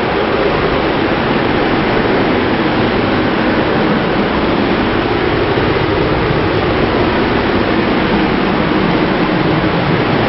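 Paint booth ventilation running: a loud, steady rush of moving air with a faint low hum.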